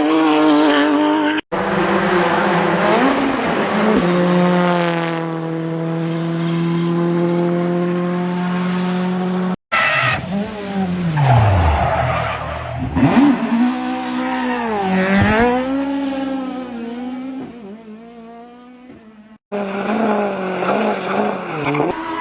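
Rally car engines running hard at high revs, their pitch climbing, holding steady and then dropping and rising again as the cars pull through the gears. The sound is a run of separate clips, each ending in an abrupt cut.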